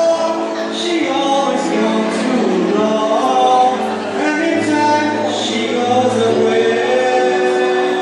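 Singing into a microphone over a backing music track with a held bass line, the sung notes sliding and changing every second or so.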